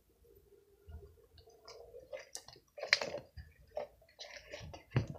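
Slime being squished and stretched by hand, with soft wet clicks and a few sharper snaps. The loudest snap comes about three seconds in and another near the end.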